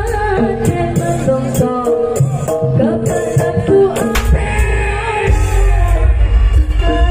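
Live East Javanese jaranan gamelan music: singing over drums and deep gong tones, with a single sharp crack about four seconds in.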